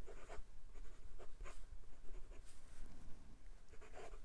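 Hongdian N7 fountain pen's fine steel nib scratching across Clairefontaine paper in short, irregular strokes as words are written in cursive. The nib is smooth with just a hint of feedback.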